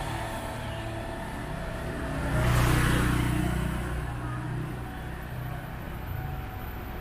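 Motor scooter engine running as the scooter rides away down a narrow lane, with a louder swell about two and a half seconds in.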